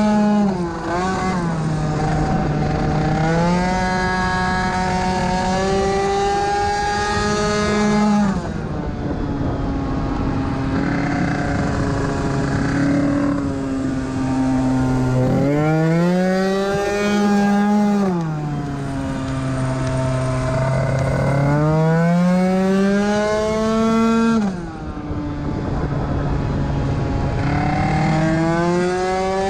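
Honda Zip SP scooter's two-stroke engine, tuned with a 2Fast 70cc kit, running hard on a track lap. Its note rises and falls with the throttle through the corners, dropping sharply twice when the throttle is shut and climbing again under acceleration.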